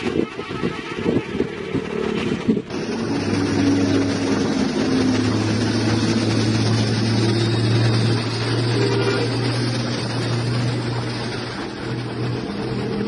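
Diesel engine of a heavily loaded self-loader truck carrying an excavator driving past: a steady low drone that builds to its loudest about eight seconds in and eases off near the end. Before it, about two and a half seconds of irregular road noise that cuts off abruptly.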